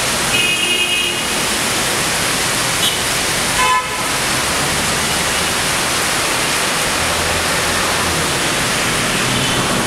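Steady rain hissing. A vehicle horn honks briefly about half a second in, and a louder one honks near four seconds.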